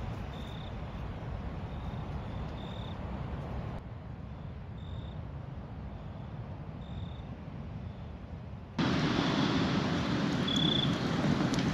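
Steady wash of small waves on the beach, with a cricket giving short, high chirps about once a second. About nine seconds in the sound turns louder and fuller as a wood fire burns in a fire ring, with an occasional crackle.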